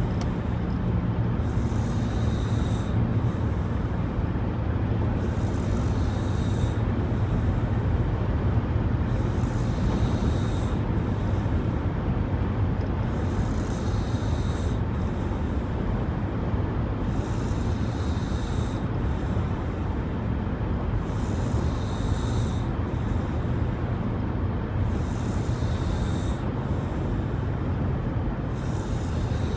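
A woman snoring in a steady rhythm, a breathy rasp about every two seconds, over the constant drone of road noise inside a moving car.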